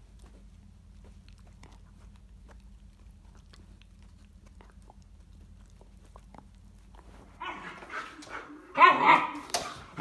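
A dog barking and yelping in short loud calls, starting about seven seconds in and loudest near the end, over a faint low hum.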